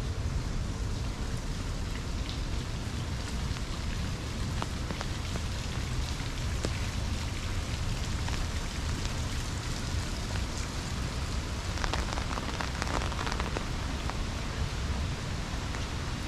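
Steady rain falling, with scattered sharp drop ticks over a low rumble and a quick run of denser ticks about three quarters of the way through.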